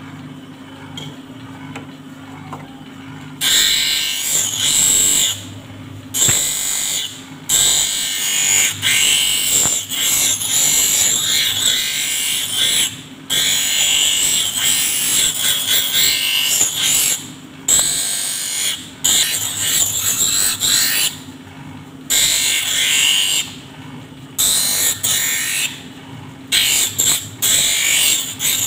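An optician's lens-edging grinder hums steadily. From about three seconds in, a glass lens is pressed against its grinding wheel to size it down, giving repeated spells of harsh grinding broken by short pauses where the lens is lifted off.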